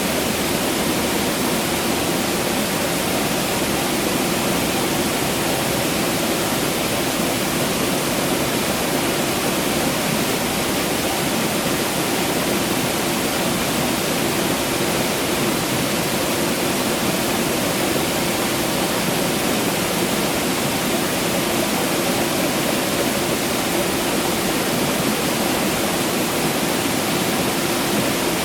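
Water rushing steadily, an even, unbroken hiss that does not change.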